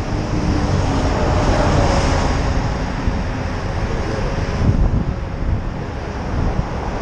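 Steady wind rumble buffeting the microphone of a camera on a moving bicycle, mixed with the noise of highway traffic going by.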